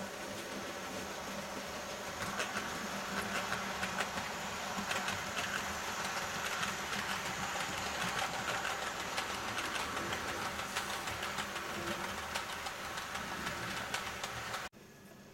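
OO gauge model Class 37 diesel hauling a train of oil tank wagons past, with a steady mechanical running hum and many small clicks of wheels over the track. Cuts off suddenly near the end.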